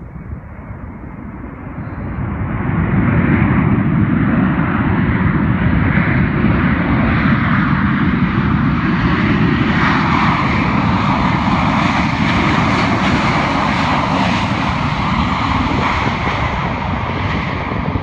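Boeing 737 jet engines running at high power as the airliner rolls along the runway past the listener: a broad, steady roar that swells about two seconds in and eases a little near the end.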